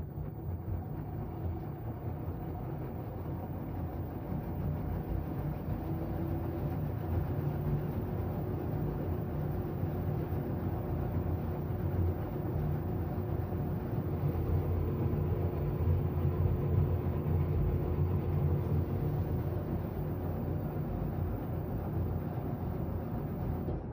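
LG washing machine on its spin cycle: a steady low rumble with a motor hum, getting gradually louder.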